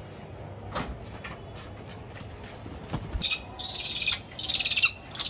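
A kite calling: a series of high, rapidly trilled squeals, each about half a second long, starting about three seconds in. A couple of faint low knocks come before them.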